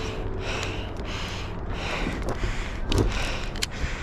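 Heavy breathing, hissy breaths coming about every second and a half, over a low wind rumble on the microphone. A few sharp clicks cut in near the end.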